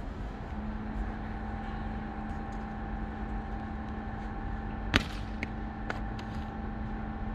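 Steady low hum with a held droning tone that comes in about half a second in. About five seconds in there is one sharp smack, the loudest sound, followed by two fainter clicks.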